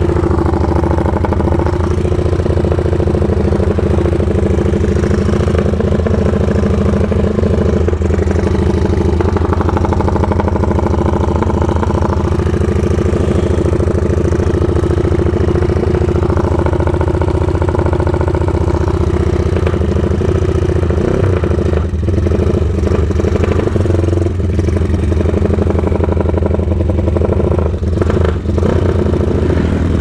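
Motorcycle engine running at a steady pace while riding along a road, easing off briefly a few times in the last third.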